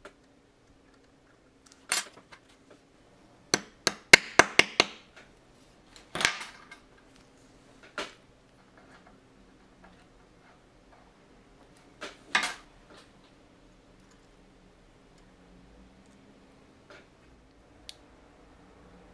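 Light hammer taps on the punch of a watchmaker's staking set, driving apart the badly rusted, seized-together central wheels of a Rolex 1556 movement. A sharp tap, then a quick run of about six taps, then three more single knocks spaced a couple of seconds apart.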